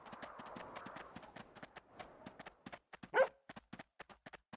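Dog's paws and claws tapping in quick, irregular steps as it trots, with one short bark about three seconds in.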